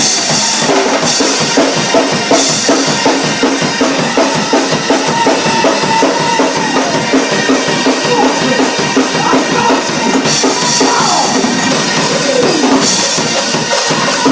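Live church band music, with a drum kit playing a steady, driving beat under other pitched instruments.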